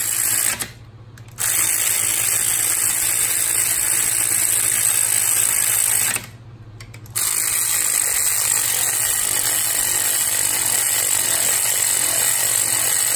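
Power ratchet running a socket down onto the cylinder-head bolts of a Yanmar 3JH3E marine diesel, a loud steady whirring over a low hum that stops briefly twice, about a second in and about six seconds in, between bolts.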